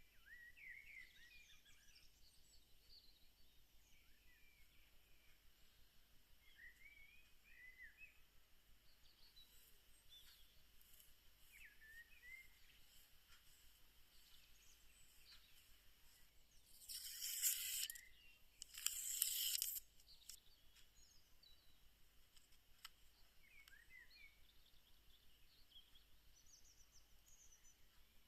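Faint bird chirps over a quiet background hiss, broken twice by short scratchy bursts of noise, each about a second long, about two-thirds of the way in.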